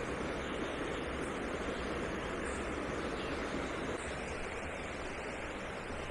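Small brook tumbling over stones: a steady rush of flowing water, a little quieter about four seconds in.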